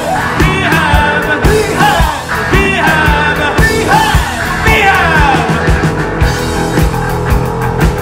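Live rock band playing loud: a steady drum beat with bass guitar, electric guitar and keyboards, over which sliding, swooping notes rise and fall, with sung or shouted vocals.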